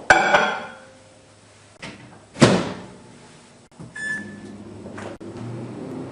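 Household appliance sounds: a ringing clank, a sharp knock about two seconds later, a short electronic beep about four seconds in, and then a steady low hum starting up near the end.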